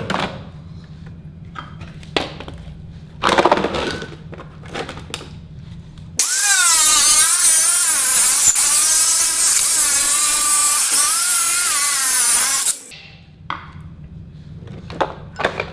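Angle grinder cutting into a projector's plastic housing for about six and a half seconds, starting about six seconds in, its high whine wavering in pitch as the disc bites. Before it come a few handling bumps, one loud knock about three seconds in, as the projector is set in place.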